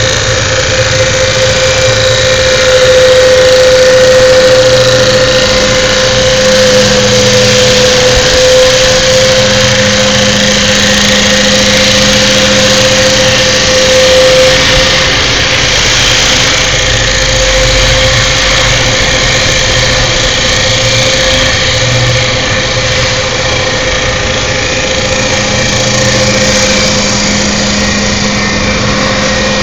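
CNC woodworking lathe running, spinning a wooden billiard-table leg against its cutter, with a steady motor whine over continuous machine and cutting noise.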